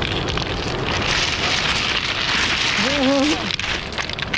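Sea surf washing in, a loud hissing and crackling rush that builds about a second in and eases near the end, with a short vocal sound about three seconds in.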